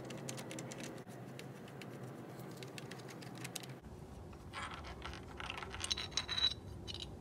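Small metallic clicks and scraping from hands working at the intake camshaft adjuster and its timing chain on a BMW N20 engine, with a louder stretch of scraping and clinking about four and a half to six and a half seconds in.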